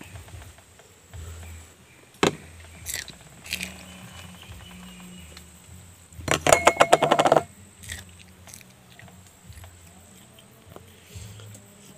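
Green chilli being dipped into salt in a small steel dish, with light clicks against the metal. About six seconds in, a loud, rapid rattling sound lasts a little over a second.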